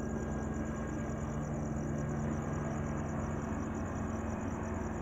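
Steady night ambience: a low, even engine hum under a continuous high, pulsing insect trill.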